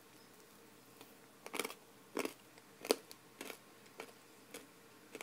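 Faint, short crunches of someone chewing Kracie Nerunerunerune grape candy foam topped with sugar crystals, several bites spaced about half a second to a second apart.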